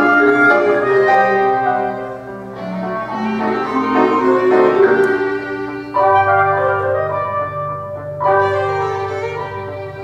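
Small chamber ensemble of violin, clarinet, trombone, piano and percussion playing silent-film accompaniment music, the violin carrying the melody over sustained chords. Strong new chords come in suddenly about six and eight seconds in.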